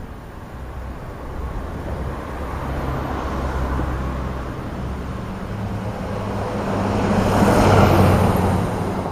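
A road vehicle driving past, its engine hum and tyre noise building to a peak about eight seconds in, then easing off.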